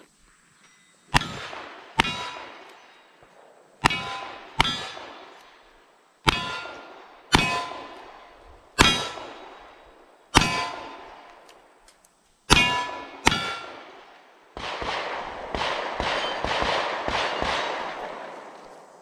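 Ten shots from single-action revolvers in a steady string, each answered by the clang of a steel target ringing out and fading. After the last shot comes a few seconds of dense rattling noise.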